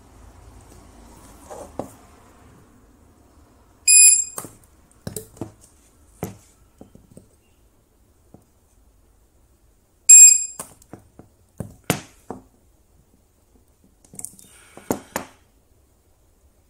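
Mini DIY spot-welder control board beeping twice, about six seconds apart, each short high beep marking a weld pulse fired at maximum energy through brass and nickel strip on a battery cell. Sharp clicks of the copper probes and metal strip follow each beep.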